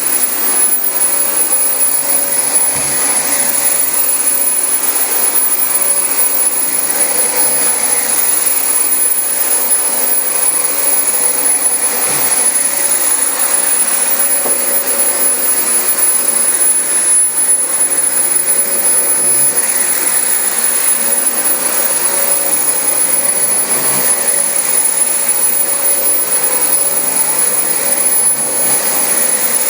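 Dyson DC25 upright vacuum cleaner running steadily on carpet, a constant loud rushing sound with a high-pitched whine over it.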